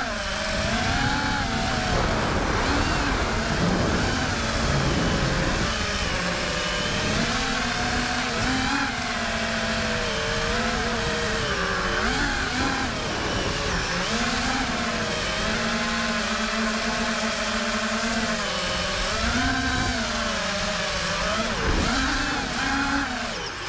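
FPV quadcopter's electric motors and propellers whining, the pitch rising and falling again and again with throttle, heard from its onboard camera with a low wind rumble underneath.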